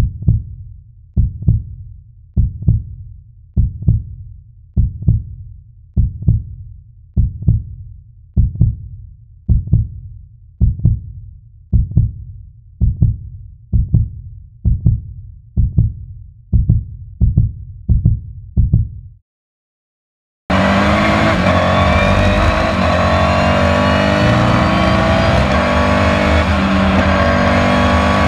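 Slow, heavy heartbeat thumps, about one double beat a second, for some nineteen seconds, then cut off. After a second of silence, a Renault Sport RS.01 race car's twin-turbo V6 is heard from inside the cockpit, pulling hard with its pitch rising steadily as it accelerates.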